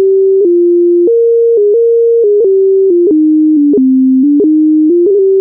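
Computer playback of a Highland bagpipe reel in plain, beep-like electronic tones: a single melody line with no drones, stepping from note to note, with quick grace-note blips between many of the notes.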